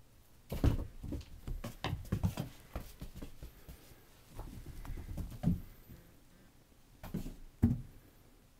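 A cat's paws thumping on carpeted stairs as it runs and pounces after a laser dot: irregular dull thumps in clusters, the loudest about half a second in and again near the end.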